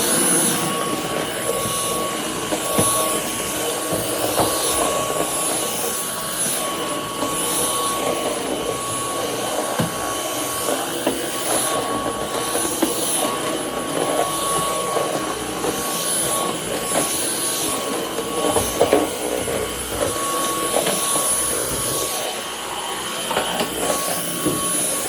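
Dyson Cyclone V10 cordless stick vacuum running steadily: a constant high motor whine over the rush of suction, with the sound wavering as the cleaner head is moved about.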